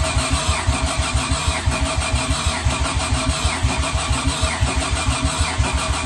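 Nissan RB25 straight-six being cranked over by its starter motor, with a steady starter whine and an even, rapid beat of compression pulses; the engine does not fire.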